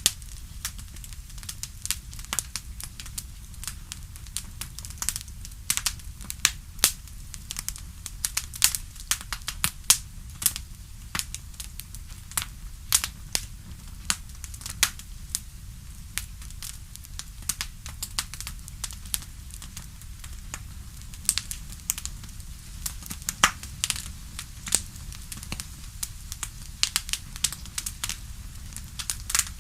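Bonfire crackling: irregular sharp pops and snaps, several a second, over a steady low rumble of burning wood.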